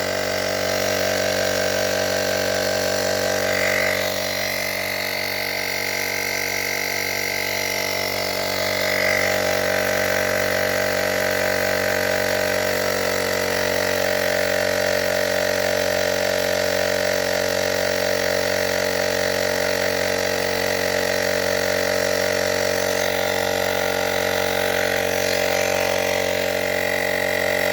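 Handheld battery-powered tyre inflator running steadily, its small electric motor-driven compressor pumping air into a low motorcycle tyre with a constant whine.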